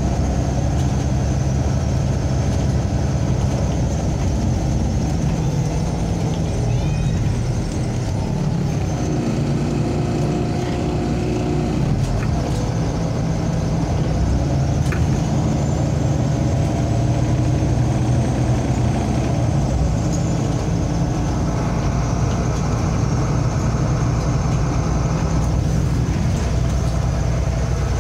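Cabin sound of a MAZ-203 city bus on the move: a steady low engine drone with road noise and a thin high whine above it, which rises briefly in pitch about halfway through.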